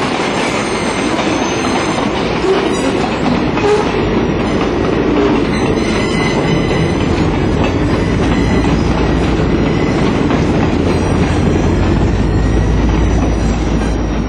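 A passing train's freight cars and passenger coaches rolling by on the rails, a loud steady rumble of wheels on track with a thin squeal about six seconds in. The low rumble grows stronger in the second half as the last coach goes by.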